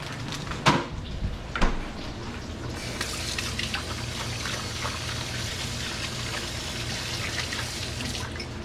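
Short ribs sizzling in butter and oil in a hot pan, with two knocks a second or so in; from about three seconds in a kitchen tap runs over the sizzle and is shut off near the end.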